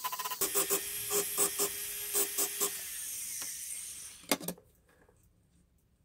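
Micromotor rotary handpiece running with a burr against a silver part: a steady motor hum under rapid scratchy grinding as it textures the metal. It fades out about four seconds in, followed by one sharp knock.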